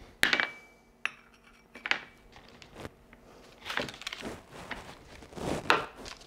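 Kitchen knife knocking on a cutting board and clinking against a small ceramic bowl as butter is cut into pieces and dropped in: a handful of separate sharp knocks and clinks, the first the loudest.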